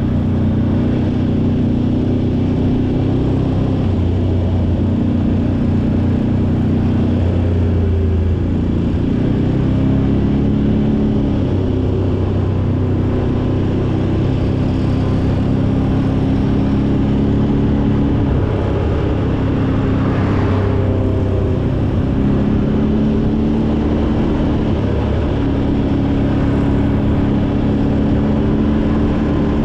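ATV engine running on the move, its pitch stepping up and down as the revs change.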